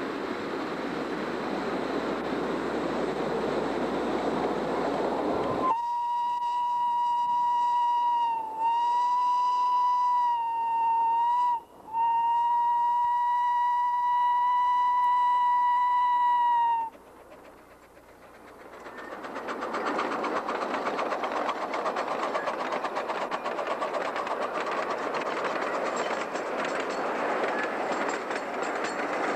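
A rushing noise, then a miniature train's whistle blown long and steady in three blasts, the last the longest, its pitch sagging slightly at each break. After a short lull the train's coaches run past on the rails with a rising rattle and clatter.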